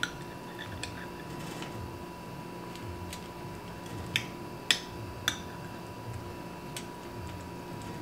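Metal spoon clinking against the inside of a glass jar while scooping out hot giardiniera: a scattered handful of sharp clicks, the three loudest a little past the middle, over a faint steady hum.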